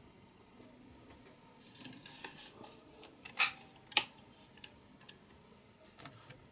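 Keys being pressed on the Poqet PC palmtop's keyboard: a light rustling clatter about two seconds in, then two sharp clicks about half a second apart, and a few fainter ticks near the end.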